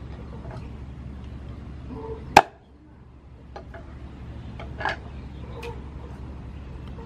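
Cleaver chopping a whole chicken on a wooden chopping board: one loud, sharp chop about two and a half seconds in, a second near five seconds, and a few lighter knocks between.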